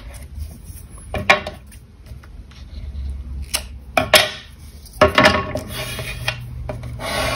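Hands working a roll of double-sided adhesive tape on card stock: the tape is pulled and torn off the roll, the card rustles as it is pressed down, and there are a few sharp clicks and taps.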